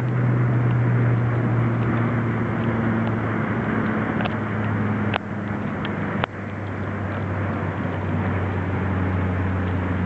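Steady low mechanical drone with an even noise, broken by a few sharp clicks between about four and six seconds in.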